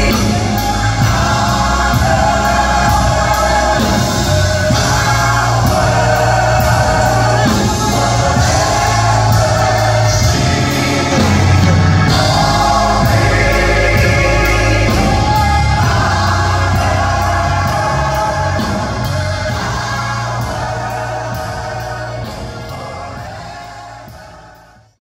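Gospel choir singing full sustained chords with a live band of keyboards, organ and drums keeping a steady beat. The music fades out over the last few seconds.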